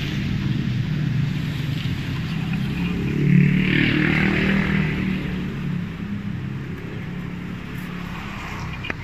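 Road traffic going past: a passing motor vehicle's engine rumble swells to its loudest about three to four seconds in, then fades away.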